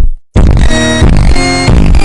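Fake emergency-alert alarm: after a short dropout, a run of harshly distorted electronic tones at full loudness, the pitch changing about three times a second.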